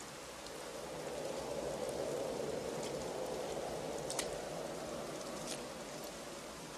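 Steady rain pouring down, with a few sharp ticks of drops near the end.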